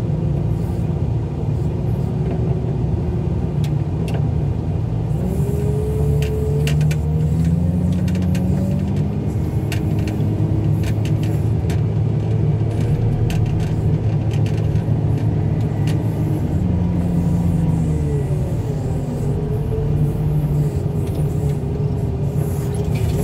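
Heavy loader's engine running under load while carrying a pickup truck on its forks. The revs climb a few seconds in and ease back down later, with scattered metal clanks and rattles along the way.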